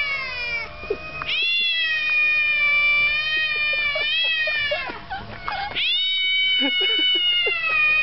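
Cats caterwauling in a face-to-face standoff: long, drawn-out, wavering yowls that break off and start again about a second and a half in and near six seconds. These are the warning yowls of a territorial quarrel.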